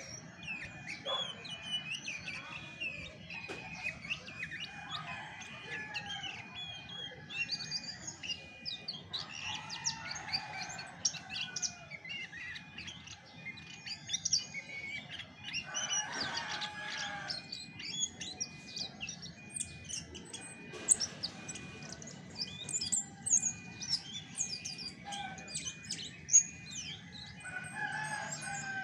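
Chestnut-backed thrush singing a fast, continuous, varied run of short chirps and whistles, over a low background hiss.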